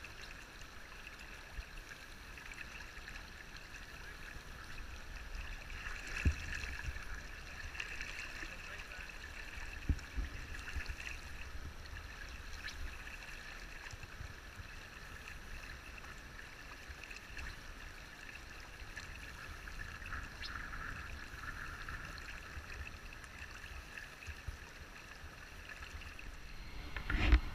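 River water flowing and rippling past wading anglers, a steady rushing, with a low rumble underneath. A few dull knocks come about six and ten seconds in, and a louder one near the end.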